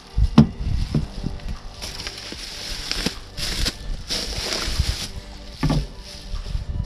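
Packaging rustling and crinkling in several swells as a boxed rear coilover shock absorber is unpacked, with a few knocks and thuds of parts being handled near the start and again near the end.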